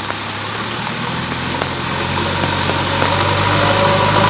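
Diesel engine of a backhoe loader running steadily, growing louder over the first few seconds, over the hiss of steady rain.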